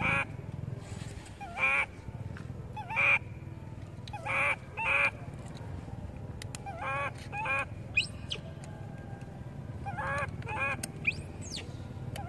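Baby long-tailed macaque crying: short, wavering, squealing cries, mostly in pairs, repeated every second or two.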